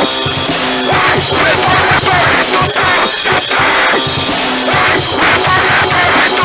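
Loud, fast punk/heavy-metal rock music: distorted band with a busy drum kit, in an instrumental stretch between shouted verses.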